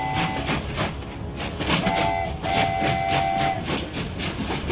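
Cartoon train sound effect: wheels clicking over rail joints about four times a second, with a chord-like train whistle that ends about half a second in, then comes back as a short toot and a longer toot midway.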